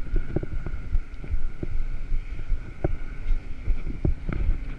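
Wind buffeting a bike-mounted camera's microphone while riding a bicycle on a concrete road: a steady low rumble with irregular short knocks from the bike and camera jolting over the road surface.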